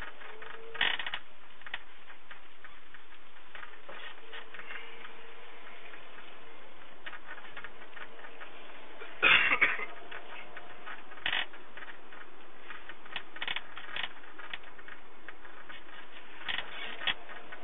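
Cabin noise inside a moving passenger minibus: a steady running hiss with scattered rattles and knocks from the van's interior, the loudest clatter about nine seconds in.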